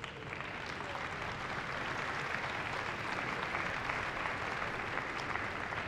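Large audience applauding, a dense, steady clapping that builds up over about the first second and then holds.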